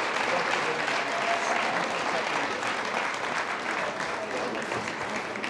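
Audience applauding, a dense patter of many hands clapping with voices mixed in, easing a little near the end.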